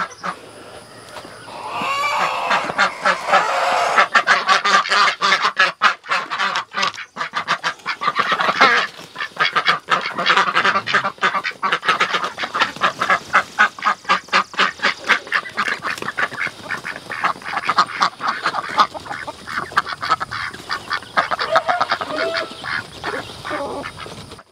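Pekin ducks quacking loudly, many calls overlapping in a rapid, continuous run that starts about two seconds in.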